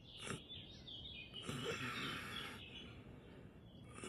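Soft birdsong chirping in a quiet morning ambience, with a man's low, breathy groan about a second and a half in.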